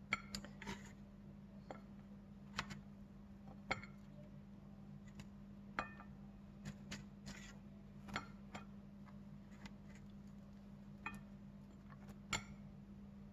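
Light clinks and taps of toast pieces and a utensil being set on a plate, about a dozen short scattered knocks over a faint steady hum.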